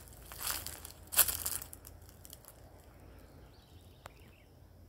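Rustling and crunching noises over the first second and a half, the loudest just past a second in, then a low steady background with a single sharp click about four seconds in.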